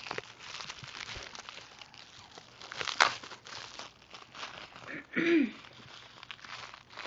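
Plastic bubble wrap crinkling and crackling as it is handled and unwrapped from a small nail polish bottle, with a sharp crackle about three seconds in. A short voice sound comes a little past the middle.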